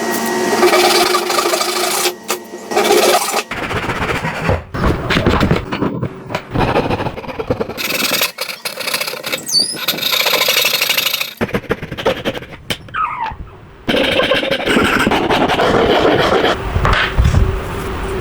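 Woodworking tools rasping and scraping on wood, in several short segments that change abruptly every few seconds.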